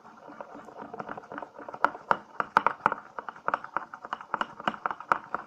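A spoon stirring a thickening mix of liquid soap and salt in a bowl: rapid, irregular clicking and scraping against the bowl, several taps a second.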